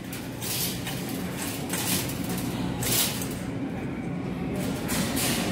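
Shopping cart rolling over a hard store floor, a steady rumble with several short rattles, over supermarket background noise.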